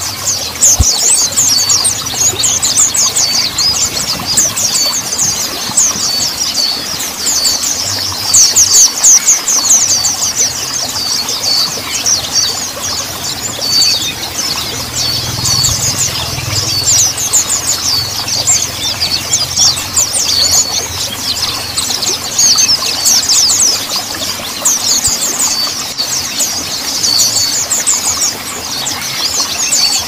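Mountain white-eye (pleci montanus) singing a long, rapid twittering song of quick, high, down-slurred notes, running on with only brief lulls.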